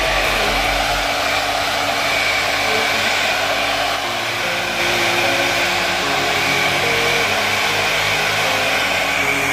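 Handheld hair dryer blowing steadily, with a faint high whine over the rush of air.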